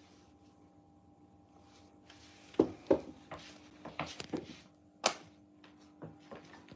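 A faint steady hum, then a scattered run of short knocks and clicks starting about two seconds in. The loudest are two knocks with a brief ring close together, and a sharp click a couple of seconds later.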